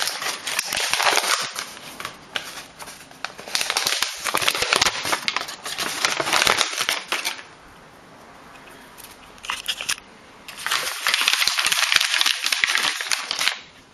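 Packaging crinkling and rustling as it is handled in one hand. Long stretches of dense crackling, a lull about halfway with one short burst, then another long stretch that stops just before the end.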